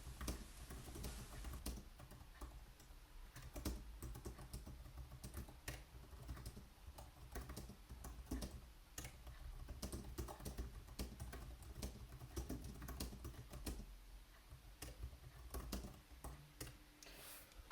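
Typing on a slim chiclet-key wireless keyboard, the iClever GK03: a run of soft, irregular key clicks, several a second, over a low hum.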